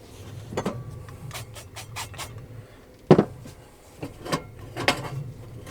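Light clicks and clatter of cooking gear being handled and set down, with a sharper knock about three seconds in and a few more after it.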